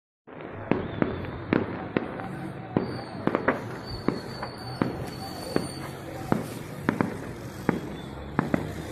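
Stored fireworks going off in a fireworks-depot fire after an explosion: a string of sharp, irregular bangs, roughly two a second, over a steady rumbling noise.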